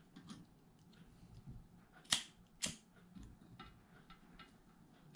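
Handheld lighter clicking while lighting a gas camping stove: two sharp clicks about half a second apart, then a few faint ticks.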